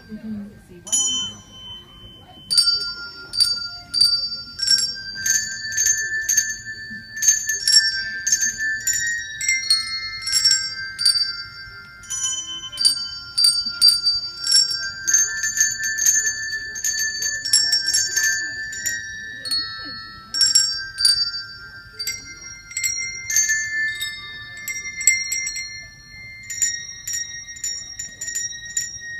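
A children's set of coloured handbells played as a simple tune: single notes struck one after another, each ringing on and overlapping the next, starting about a second in.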